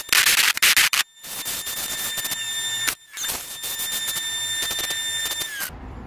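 Bench grinder grinding metal, a harsh rasp with a steady high whine over it. It breaks off twice briefly and stops abruptly near the end.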